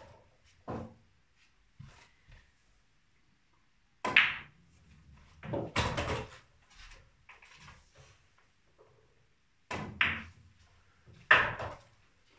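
Snooker balls on a pool table: sharp clacks of cue on ball and ball on ball, with knocks of balls against the cushions and into the pockets. They come in separate bursts, the loudest about four seconds in and near the end, with fainter knocks between.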